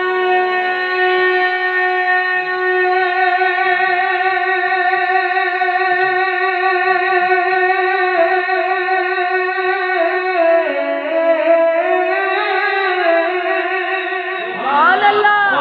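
A man's voice holding one long sung note of a Punjabi naat into a microphone. The note stays steady for about ten seconds, then drops and wavers in pitch, and breaks off near the end with a quick upward swoop into the next phrase.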